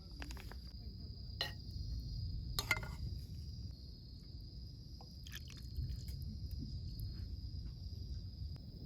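Crickets or other insects chirping in a steady high drone over a low outdoor rumble, with a few sharp clicks about a second and a half and nearly three seconds in.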